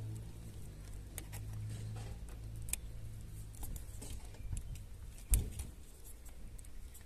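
Handling noise of a rotary hammer's metal depth-stop rod being fitted into the side-handle clamp: scattered light clicks and rattles, with one sharper knock a little past five seconds in. A low hum sits under the first few seconds.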